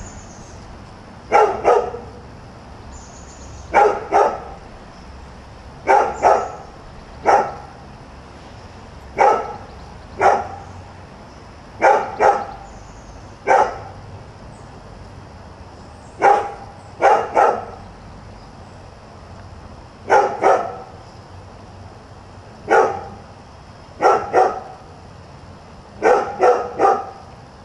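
A dog barking over and over, in short runs of one to three barks about every two seconds: persistent nuisance barking.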